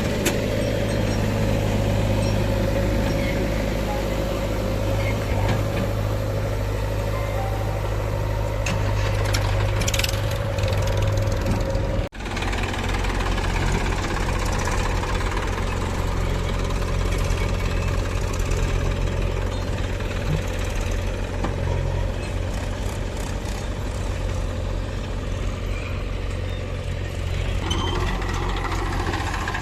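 Heavy diesel engines of a backhoe loader and tractors running steadily, with a low, even hum; the sound breaks off for an instant about twelve seconds in.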